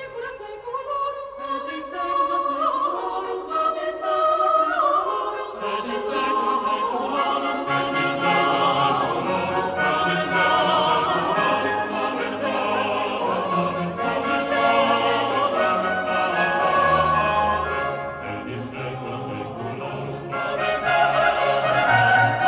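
Classical choral and orchestral music: voices singing long, wavering notes over an orchestra, with lower parts joining about five seconds in.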